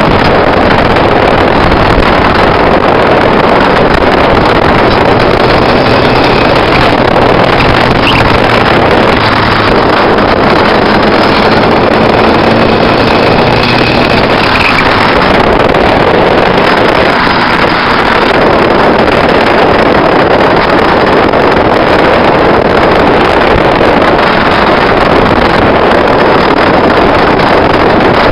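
Heavy wind rush and road roar on the microphone of a camera mounted low on the outside of a car at speed, with the turbocharged SR20 engine of a 1990 Nissan Bluebird droning faintly underneath.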